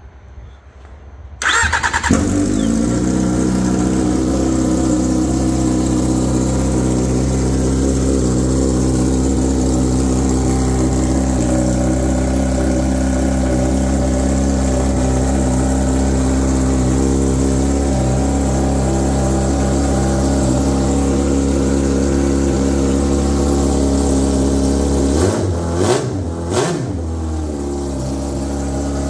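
Yamaha Apex four-cylinder four-stroke snowmobile engine, run with an open header and no muffler, starts about a second and a half in. It then runs steadily and loudly, and is briefly revved up and back down twice near the end.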